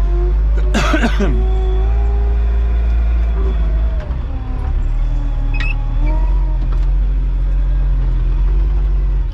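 Digging machine's diesel engine running steadily under load, its hydraulics whining in tones that rise and fall as the arm and bucket are worked, with a short harsh scrape about a second in.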